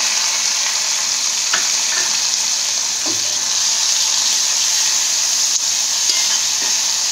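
Onion paste frying in hot oil in an iron skillet, a steady sizzle, with a metal spoon stirring and now and then clicking against the pan.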